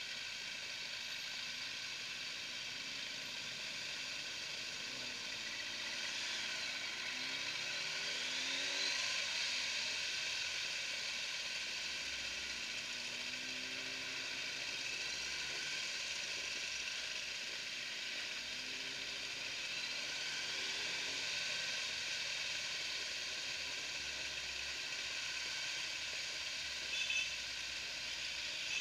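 A group of motorcycles riding slowly, heard from one of the bikes. Faint engine notes rise and fall under a steady hiss.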